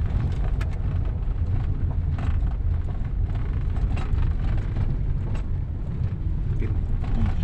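Steady low road and engine rumble inside a Toyota's cabin as it drives a rough, dusty mountain road, with scattered light knocks and rattles.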